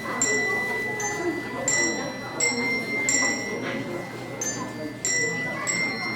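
Handbells rung one note at a time in a slow tune, about one and a half strikes a second, each note ringing on with a clear high tone.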